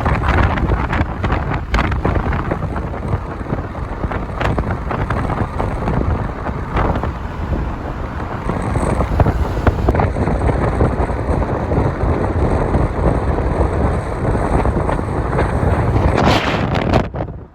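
Wind buffeting a phone's microphone: a loud, steady rumble with a few small knocks, cutting off sharply just before the end.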